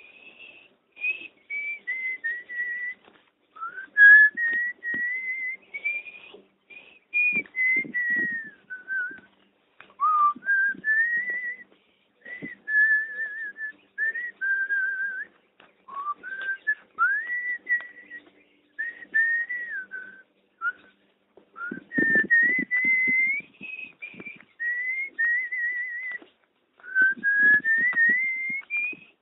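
A person whistling a slow melody: a single clear tone held on notes and gliding between them, in short phrases with brief gaps between.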